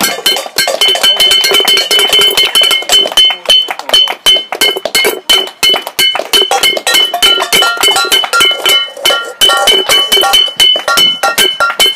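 Metal pan struck rapidly and repeatedly with a wooden spoon, several hits a second, each hit leaving a short metallic ring.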